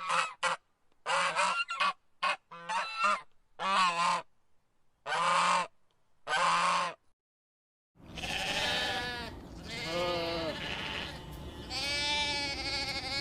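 Farm animals calling: a run of short pitched calls separated by clean silences, then three longer calls with a wavering pitch.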